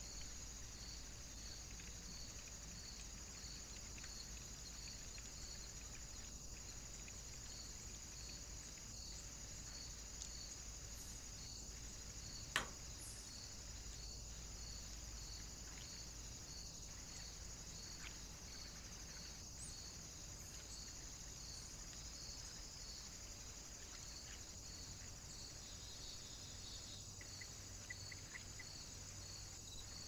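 Steady high hiss and whine of a trail camera's own recording noise, with a faint even ticking running through it. One sharp click about halfway, and a few fainter clicks.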